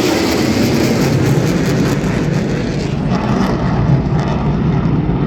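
Loud, steady noise of military aircraft flying over.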